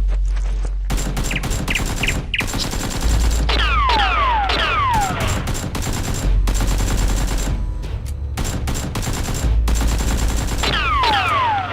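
Automatic gunfire sound effects: long rapid bursts with short breaks, mixed with whistling zips that fall in pitch, over a low bass rumble.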